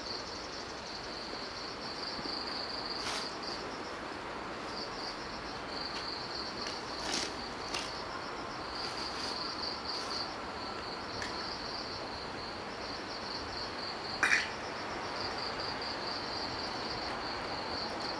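Insects chirping steadily in a high, rapidly pulsing trill over faint outdoor background noise, with a few brief sharp clicks and one louder short sound about 14 seconds in.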